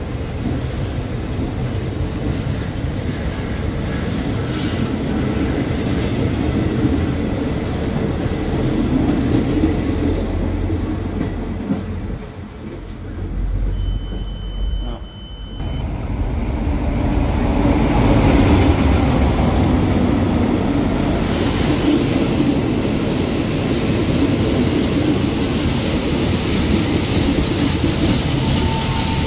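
Passenger train coaches rolling past along the platform track, fading away about twelve seconds in. From about sixteen seconds in a second train comes in along the same track, its rumble building with wheel and brake hiss.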